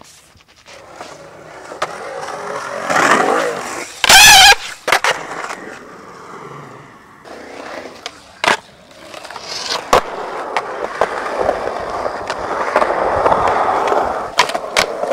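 Skateboard riding on concrete: wheels rolling over the ramps, sharp clacks of the board landing and striking the edges, and a long scraping grind along the coping near the end. A brief, very loud screech about four seconds in is the loudest sound.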